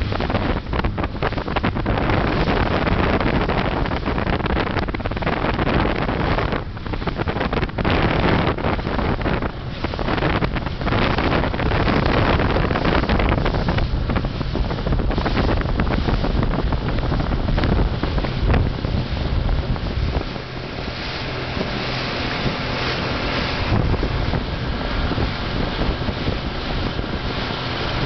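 Gusty wind buffeting the microphone over rushing water and waves as boats move through choppy sea; it eases a little and steadies about twenty seconds in.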